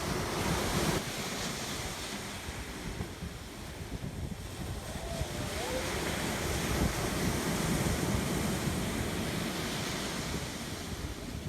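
Ocean surf breaking and washing up on a sandy beach, with wind rumbling on the microphone. The wash swells loudest near the start and again in the second half.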